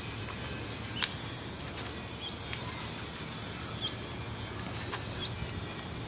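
Outdoor ambience: a steady low hum of distant traffic under a faint high hiss, with a few faint short high chirps and a light click about a second in.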